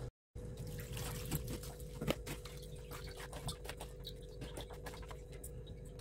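Hands rinsing and squeezing chopped banana flower pieces in water in an aluminium bowl: faint sloshing and trickling with small irregular clicks and splashes.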